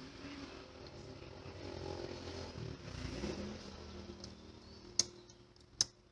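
A steady mechanical hum that swells and then fades, followed by two sharp clicks about a second apart near the end.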